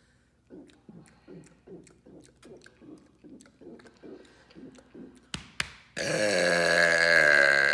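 A man's deliberate loud burp: a quick run of short throaty sounds at about two and a half a second, a sharp click, then one long, loud burp lasting nearly two seconds near the end.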